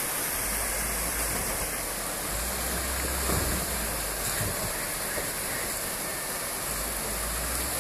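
Steady hiss of a shallow river rushing over rapids, with a low rumble from the Land Rover Defender's engine as it wades slowly through the water.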